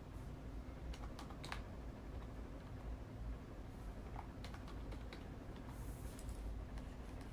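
A few scattered key taps in small clusters, about a second in and again about four and a half seconds in, over a steady low room hum.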